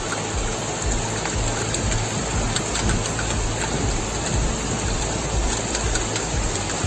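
Steady noise of heavy rain and fast-flowing floodwater, with music underneath.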